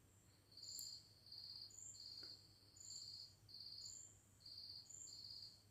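Faint cricket chirping: a run of short, high chirps at one pitch, about seven of them, repeating a little faster than once a second.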